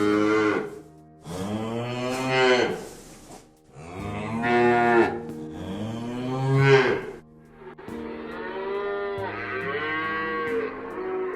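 Cow mooing: several long, drawn-out moos one after another, the last one fainter.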